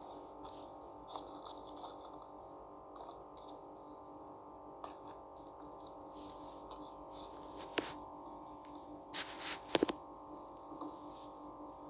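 A steady hum with light clicks and knocks scattered over it. One sharp click comes about eight seconds in, and a short cluster of knocks follows near ten seconds.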